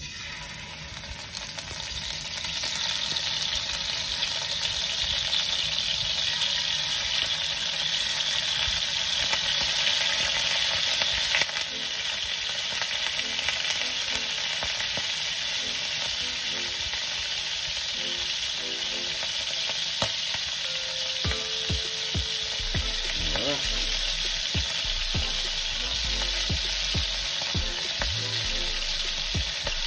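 Sea scallops sizzling in hot oil in a frying pan as they are laid in one by one to sear. The sizzle builds over the first couple of seconds, then holds steady.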